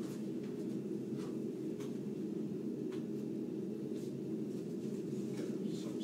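A steady low hum of room noise, with a few faint light clicks scattered through it.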